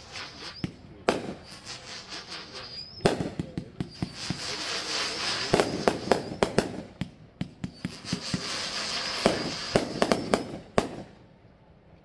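36-shot 500g fireworks cake firing: shots thump out of the tubes, each climbing with a high screeching tail and bursting into quick cracks. It comes in two busy runs and falls quiet about a second before the end.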